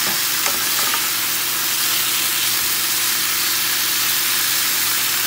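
Chicken gizzards sizzling steadily in hot oil in a nonstick frying pan as they sauté, with a couple of light scrapes of a wooden spoon in the first second.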